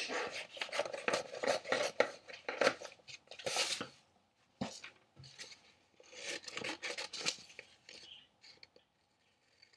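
Scissors cutting through wallpaper, a run of quick snips and paper rustling that is dense at first, thins out after about four seconds and fades almost to nothing near the end.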